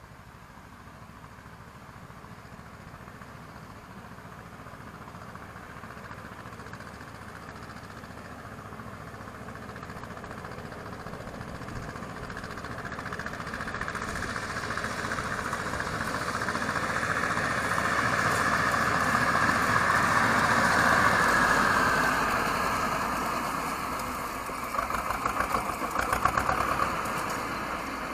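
Homemade mini tractor's engine running as it drives closer pulling a hay rake, growing steadily louder to its loudest about three-quarters of the way through, with a quick pulsing rhythm near the end as it comes close.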